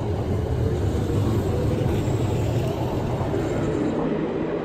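Eizan Electric Railway electric train moving past close by, a steady rumble from its wheels on the rails; near the end the deepest part of the rumble drops away.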